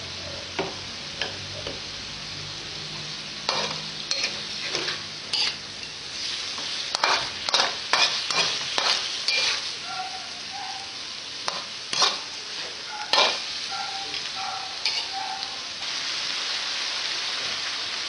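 Chicken pieces with onion and garlic sizzling in oil in a steel wok, while a metal spatula scrapes and clanks against the wok as they are stirred. The stirring strokes come thickest in the middle, and the sizzle grows a little louder near the end.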